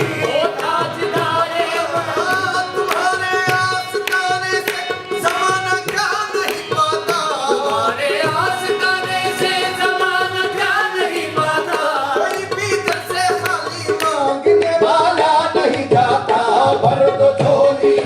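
Live qawwali music: tabla playing under an ornamented melodic line with singing, in which no words are made out. It gets a little louder about fourteen seconds in.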